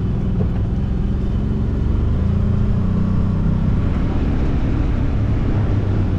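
Side-by-side utility vehicle's engine running as it is driven, a steady low drone.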